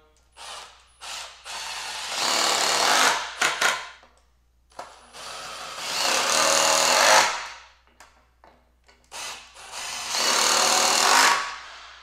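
Cordless drill driving 4-inch GRK screws into cedar logs, three screws in turn: each begins with a few short trigger pulses, then a run of about two seconds that grows louder before it stops.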